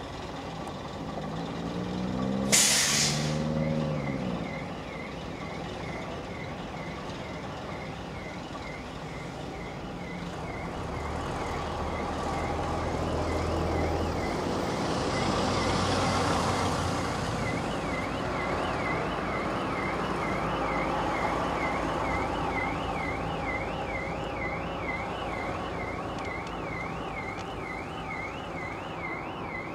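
A heavy vehicle's air brakes let out one loud hiss about two and a half seconds in, over a diesel engine rising in pitch. Diesel engines run low through the rest, and an electronic alarm tone warbles up and down about twice a second, growing plainer in the second half.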